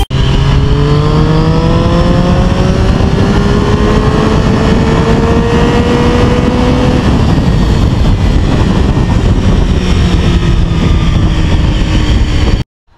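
Triumph Street Triple's three-cylinder engine pulling under load while riding, its pitch rising slowly over the first several seconds and then holding steady. The sound cuts off suddenly near the end.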